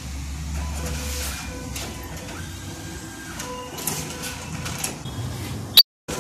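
A bank ATM's cash dispenser running, a mechanical whirring with a few clicks as it feeds a cash withdrawal out to the slot.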